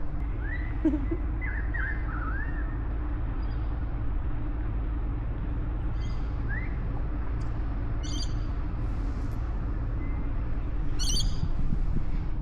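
Wild birds calling: a few whistled, gliding notes at first, then short bursts of high, quick chirps twice near the end. Underneath is a steady low rumble.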